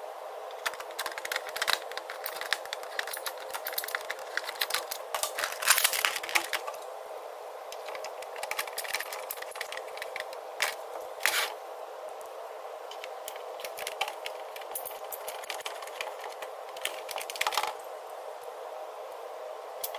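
Irregular small clicks, scrapes and rattles of hard plastic Nerf blaster parts being handled and fitted together, with a small precision screwdriver turning screws into the plastic shell. A steady hum runs underneath, and the busiest stretch of clicking comes around a quarter of the way in.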